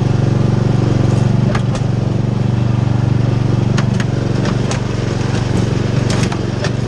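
Craftsman riding lawn mower's engine running steadily while towing a loaded wagon over rough forest ground, with sharp knocks and clicks scattered through as the wagon jolts and brushes past sticks.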